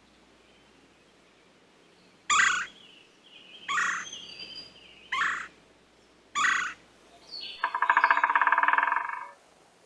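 A bird calling: four short, loud calls about a second apart, then a long call that pulses rapidly, near the end.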